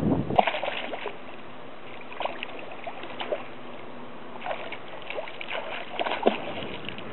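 Hooked rainbow trout thrashing and splashing at the water's surface while being fought to the net, in irregular bursts with the loudest splashes near the start and near the end.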